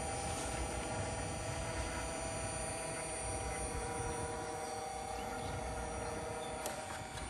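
Electric hydraulic pump of an AL-KO HY4 motorhome levelling system running with a steady hum, extending the hydraulic jacks under the weight of the vehicle as they lift it. The hum stops with a click near the end.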